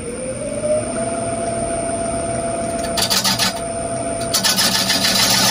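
Wood lathe motor speeding up toward its 500 RPM setting: a rising whine that levels off about a second in and then holds steady. From about three seconds in, a turning tool cuts into the spinning oak bowl with a scraping, rasping noise that gets louder about four and a half seconds in.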